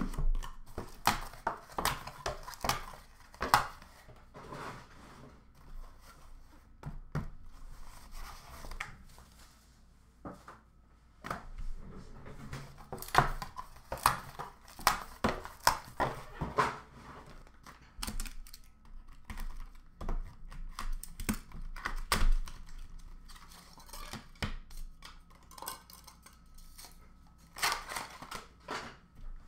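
Hands handling and opening a trading-card box and its small cardboard inner boxes: irregular taps, scrapes and rustles of cardboard, with clicks of plastic card holders.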